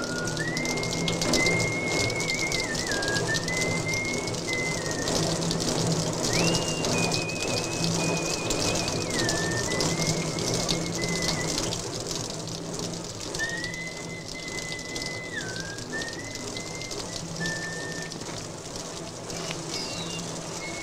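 Water spraying from a hose onto a vehicle body, a steady hiss, while a man whistles a tune in short phrases.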